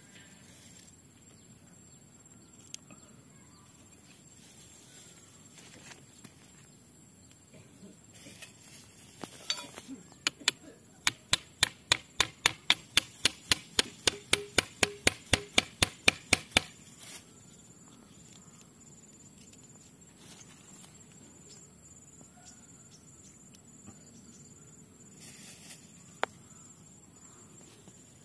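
Flat steel bar knocking rapidly against the thick root base of a Ficus microcarpa bonsai to split the overgrown roots: a run of sharp metallic strikes, about five a second, lasting some six seconds from about ten seconds in. Insects keep up a steady high buzz throughout.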